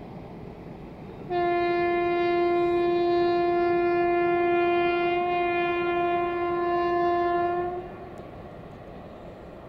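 Train horn sounding one long, steady single-note blast of about six and a half seconds, starting about a second in and then stopping, over a steady rushing background noise.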